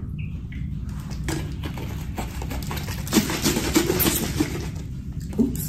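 A person drinking from a plastic bottle: swallowing and crinkling plastic, bunched about three to four and a half seconds in, over a steady low hum.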